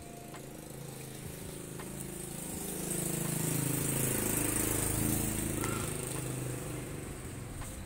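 A motor vehicle's engine passing by, swelling to its loudest about halfway through and then fading.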